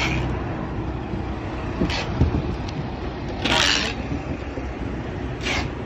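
Steady low rumble of an idling vehicle engine with a constant hum, broken by a few short hissing or rustling noises, the loudest about three and a half seconds in.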